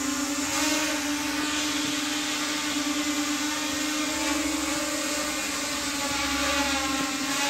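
Realacc GX210 racing quadcopter hovering, its brushless motors and 5-inch bullnose propellers giving a loud, steady buzzing whine with one strong steady tone.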